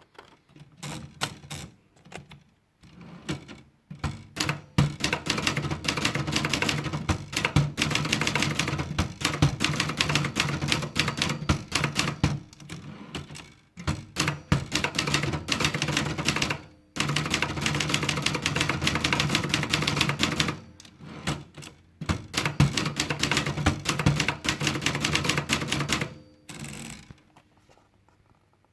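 Brother Deluxe 250 TR typewriter being typed on. A few scattered key strikes come first, then fast runs of clattering strikes broken by short pauses, and it stops near the end.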